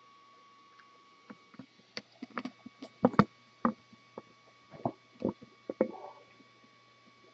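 Irregular clicks and knocks of gear being handled close to the microphone, a dozen or so spread over a few seconds, some louder than others, over a faint steady electrical hum.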